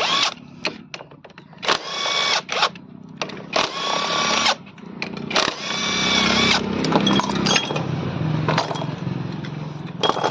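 A power tool running in short whining bursts of about a second each, three times in the first half, then a lower, steadier running sound with scattered clicks.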